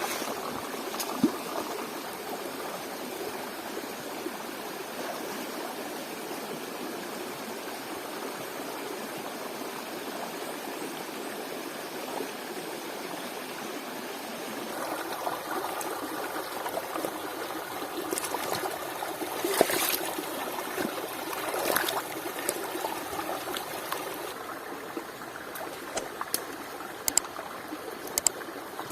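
Water of a small stream flowing and trickling steadily, with a few sharp clicks or knocks in the second half.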